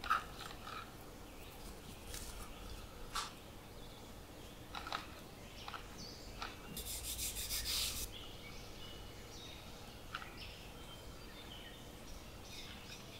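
Hands kneading and pressing wholemeal bread dough on a wooden cutting board: soft scattered rubbing and tapping sounds, with a denser rasping rub lasting about a second around seven seconds in.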